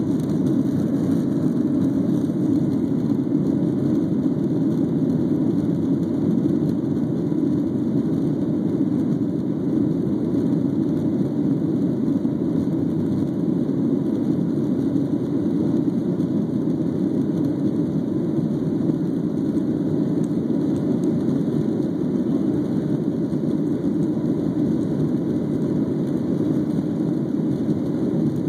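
Cabin noise of a Boeing 737's CFM56 jet engines, heard over the wing as the airliner rolls along the runway for takeoff: a steady low rumble that holds even throughout.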